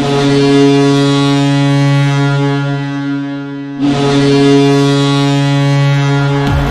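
Ice hockey arena goal horn blowing two long, steady, deep blasts, the first fading slightly before the second starts, signalling a goal. Music kicks in right at the end.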